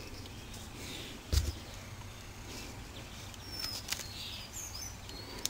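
Quiet handling of a small brushless RC motor as a driver is fitted to its screws: a dull knock about a second in, then faint clicks and a few short high squeaks.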